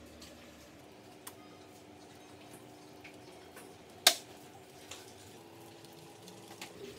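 Hands handling a homemade lamp-heated box oven: one sharp click about four seconds in, with scattered faint ticks over a quiet, low steady hum.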